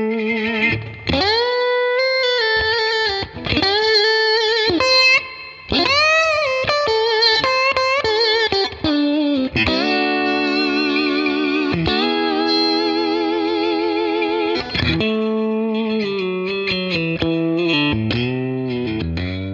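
Electric slide guitar played through an Origin Effects SlideRIG Compact Deluxe MK2 dual-stage compressor pedal. Notes glide up into pitch and ring on with long sustain. From about halfway the held notes waver with vibrato, and the sound starts to fade near the end.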